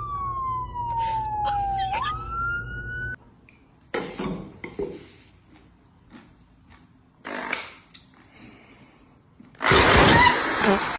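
An emergency-vehicle siren wails, sliding down in pitch and then jumping back up over a low engine hum, and cuts off abruptly about three seconds in. After that come a few faint knocks, then a loud burst of rushing noise near the end.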